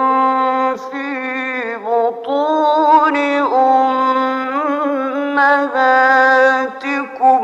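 A man's voice chanting Quran recitation in the melodic mujawwad style, on the words "fī buṭūni ummahātikum". He holds long notes, with wavering ornamented turns between them and brief pauses for breath.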